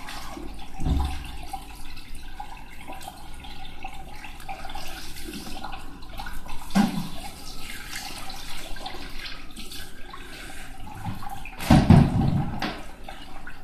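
Water running steadily in a small tiled bathroom, a fixture filling. Three dull knocks break in, the loudest near the end.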